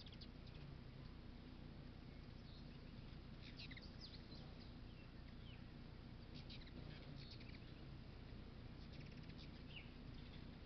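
Faint, high-pitched chittering chips of ruby-throated hummingbirds at sugar-water feeders, in several short bursts, over steady low background noise.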